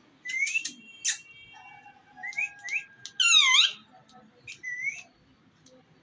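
Rose-ringed parakeet giving a series of short rising whistles and chirps, with one louder warbling call about three seconds in.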